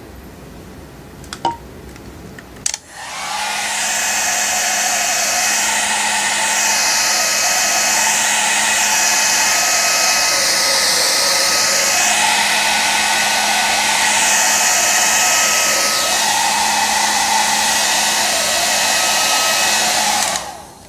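Small handheld hair dryer switched on after a couple of clicks, running steadily with a whoosh of air and a low motor hum for about seventeen seconds, then cut off near the end. It is blowing warm air onto a newly applied phone screen protector film, and its whoosh shifts as it is moved across the phone.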